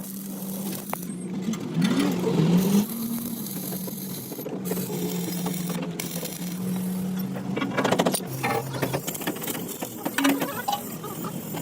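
A machine running with a steady low hum that shifts in pitch, gliding up and down about two seconds in, with a burst of rattling about eight seconds in.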